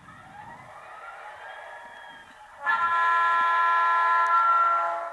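DCC sound decoder in an HO-scale diesel locomotive playing through its small onboard speaker: a diesel engine sound with a rising whine. About two and a half seconds in comes a loud multi-chime air-horn blast, held for about two seconds and cut off just before the end.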